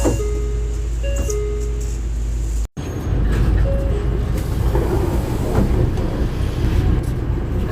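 Door chime of a 2012 Mitsubishi Fuso Aerostar city bus sounding short electronic tones over the bus's running diesel engine and cabin noise. The sound cuts out abruptly about a third of the way in, then the engine rumble resumes with another brief chime note.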